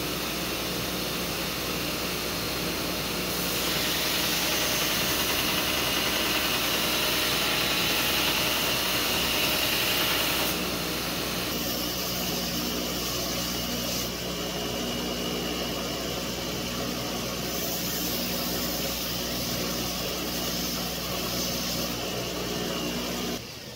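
Small belt grinder running with a steady motor hum while a 1084 carbon steel knife blade is ground against the belt to put in the bevel; the grinding hiss is louder from about four to ten seconds in. The sound cuts off just before the end.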